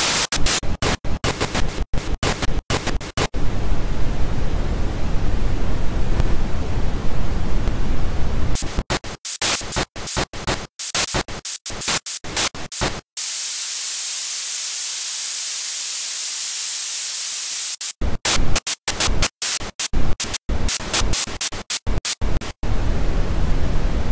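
Static-like white noise cut into a stuttering pattern: full-range hiss broken by many abrupt silent gaps. About 13 seconds in it becomes a steady, thin high hiss with no low end for about five seconds, then the choppy cutting resumes.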